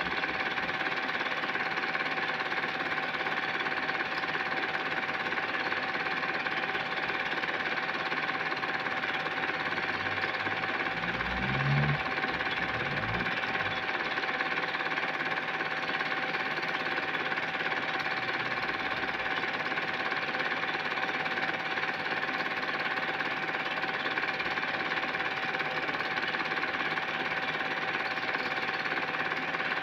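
Home-movie film projector running with a steady, fast mechanical clatter and whir. A brief low thump comes about twelve seconds in.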